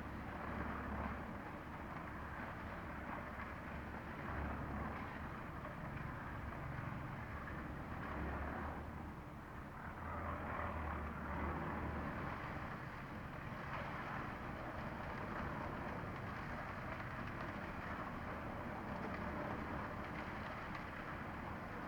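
Steady machine rumble with a low hum that swells and fades every few seconds.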